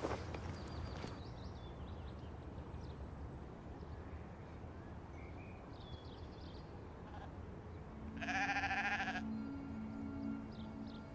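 A sheep bleats once, a quavering call about a second long, some eight seconds in, over a steady low background noise. Soft sustained low notes of music come in at about the same time.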